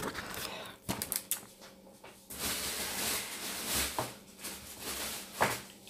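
Paper and card being handled: a few quick light taps about a second in, then a couple of seconds of paper rustling and sliding as a paper pad is moved and put down, with a sharper knock near the end.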